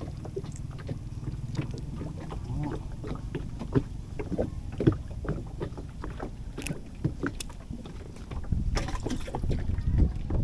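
Small clicks and rustles of hands working a fishing hook and line while unhooking a river prawn and rebaiting, over a steady low rumble. The background noise grows louder about eight seconds in.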